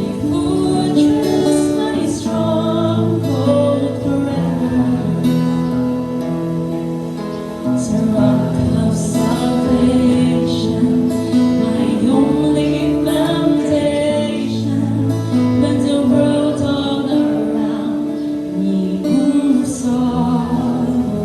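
Christian worship song: singing over acoustic guitar accompaniment.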